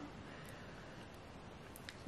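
Faint, steady room tone with no distinct sound.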